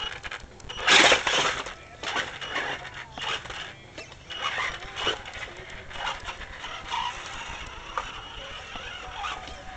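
Axial Yeti RC rock racer climbing over timbers and stones: a thin high motor whine comes and goes under a run of irregular clicks and knocks from the tyres and chassis on wood and rock. There is a loud rough burst about a second in.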